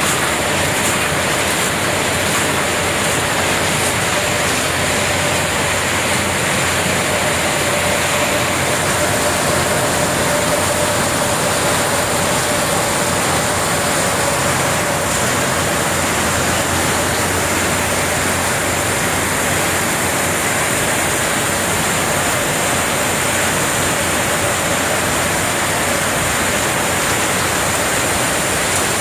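Walnut hulling line running: the steady mechanical din of conveyors, rollers and tumbling walnuts, with a rushing noise like spraying water. A faint steady hum sits under it for about the first half.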